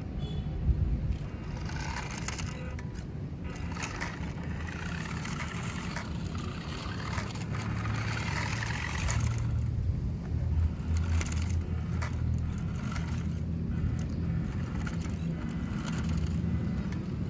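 WPL D12 RC pickup truck driving: its small electric motor and gears whirring, with the tyres crunching and scraping over gritty concrete and gravel in stretches that come and go.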